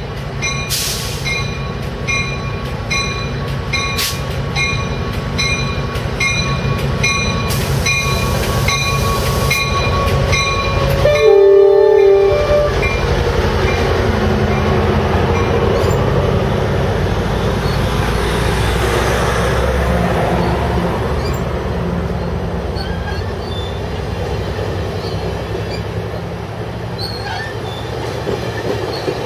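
Amtrak Pacific Surfliner pulling into a station behind an F59PHI diesel locomotive. The engine runs under a ringing repeated about twice a second, then sounds one short horn blast about eleven seconds in, the loudest moment. After the blast the double-deck cars roll slowly past with a rumble and some wheel squeal as the train slows.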